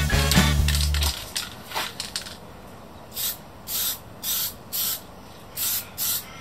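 Background music stops about a second in; then an aerosol can of etch primer sprays in about six short hissing bursts, each about half a second long, onto bare steel.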